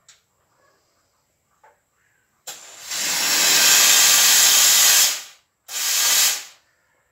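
Steam gun of a Steam Italy 3000D steam vacuum cleaner releasing pressurised steam in two blasts: a long one of about two and a half seconds starting a couple of seconds in, then a shorter one of under a second near the end.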